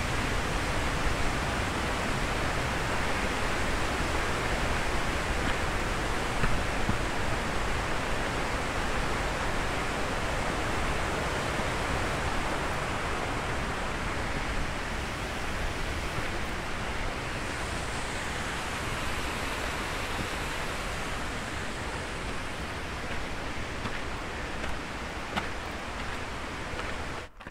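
Steady rushing of a mountain stream, an even hiss with no distinct splashes, easing slightly in level and cutting off just before the end.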